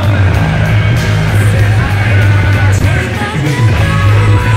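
Rock music with singing over a steady beat.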